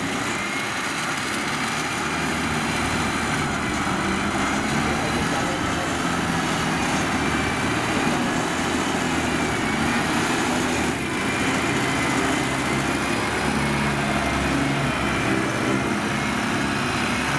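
Diesel engine of heavy farm machinery running steadily, with a high whine that drifts slightly in pitch.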